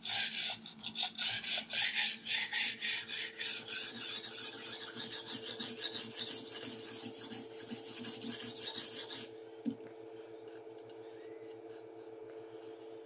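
A sharpening stone on a guided knife-sharpening system's arm rasping back and forth along the edge of a clamped chef's knife, grinding one bevel toward an apex to raise a burr. Rapid strokes, heavy for the first few seconds and then lighter, stop about nine seconds in, leaving only a faint steady hum.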